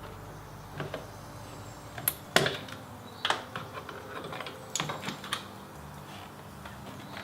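Scattered light clicks and knocks from hands and tools working on a Mazda Miata NA door's interior trim, the sharpest about two and a half seconds in.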